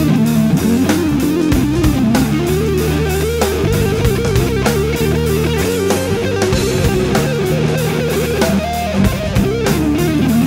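Background rock music: an electric guitar playing a melody over bass and a steady drum beat.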